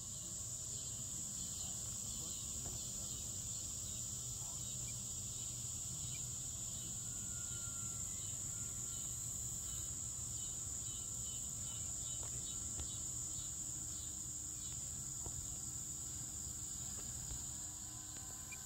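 Insects trilling steadily at a high pitch over a low wind rumble on the microphone, with a faint, distant whine from the E-flite V900 electric ducted-fan jet drifting in pitch about midway.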